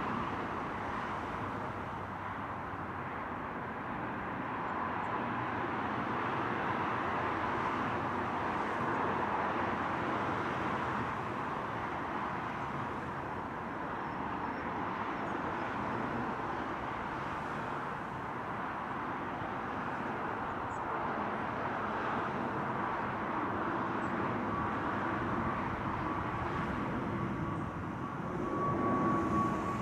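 Jet engines of a Sky Express Airbus A320 at takeoff power: a steady roar as the airliner rolls down the runway, lifts off and climbs out. A thin steady whine rises out of the roar in the last few seconds, as the climbing jet comes nearer and the sound gets slightly louder.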